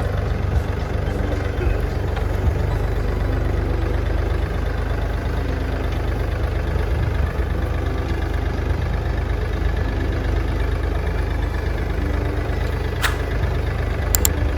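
An engine running steadily with a low rumble, with a couple of short sharp clicks near the end.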